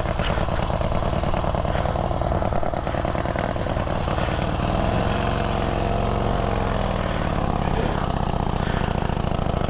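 Veteran pre-1919 motorcycle engine running steadily after finally catching on a push start, its pitch shifting a little about halfway through.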